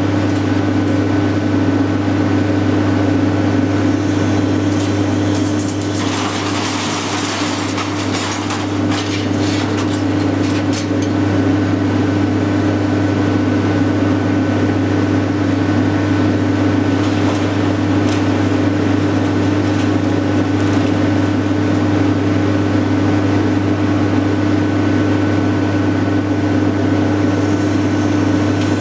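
Hydraulic scrap-metal shear baler running: a steady machine hum with a thin high whine. From about six to eleven seconds in, scrap metal clatters and crunches as it is worked, with lighter clatter again later.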